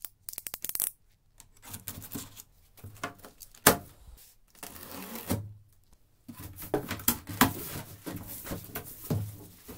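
Snap-off utility knife blade pushed out with a quick run of clicks, then the knife slitting packing tape on a cardboard box, with a single sharp snap as the plastic strapping band is cut. After that, cardboard flaps opened and handled, a rustling with scattered knocks and clicks.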